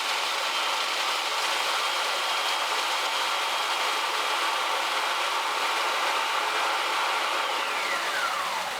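Food processor running steadily, its blades chopping a box of graham crackers into fine crumbs, with a thin motor whine over the rattle. Near the end the whine falls in pitch as the motor spins down.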